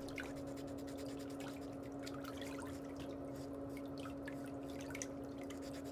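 A steady low hum with faint small ticks scattered through it.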